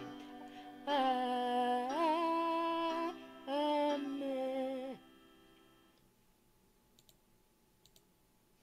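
A woman's voice singing or humming the closing held notes of a gospel song, with vibrato and a few pitch glides, stopping about five seconds in. Near silence follows, with two faint clicks near the end.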